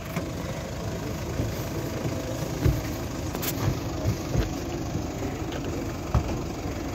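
Toyota Land Cruiser Prado SUV engine idling with a steady low rumble, with a few dull thumps and a sharp click.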